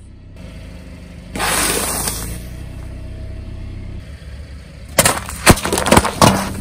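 Car tyre rolling over full aluminium soda cans, which burst one after another in several sharp loud cracks from about five seconds in, over the low hum of the car. Earlier, about a second and a half in, a loud rush of noise lasting about a second.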